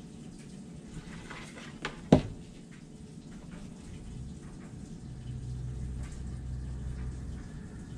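A hot glue gun set down with one sharp knock about two seconds in, just after a softer click. Then a low steady hum and light handling noise as hands press the glued safety pin onto a fabric bow.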